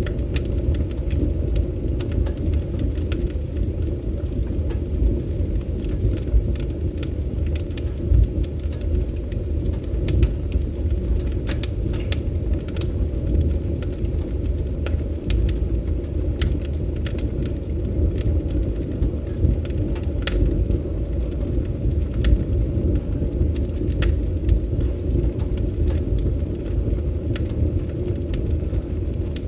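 Wood fire crackling, with frequent sharp irregular pops and snaps over a steady low rumble of burning.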